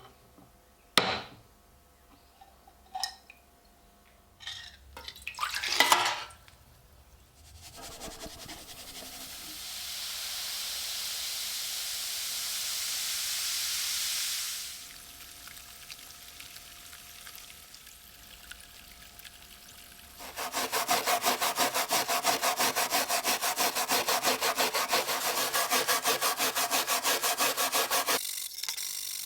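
Workshop hand-tool sounds: a few sharp knocks, then a steady hiss lasting several seconds, then about eight seconds of fast, even back-and-forth rasping strokes, like a hand saw or file working a small part.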